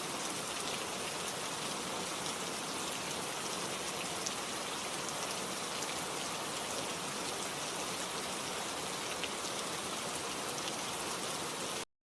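Steady rain falling, an even hiss with scattered drops ticking on a surface, cut off abruptly near the end.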